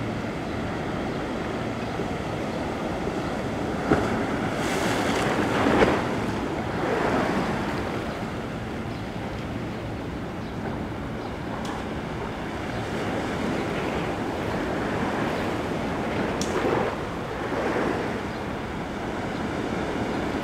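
Ocean surf washing ashore in a steady rush, swelling several times as waves break, with a couple of faint clicks.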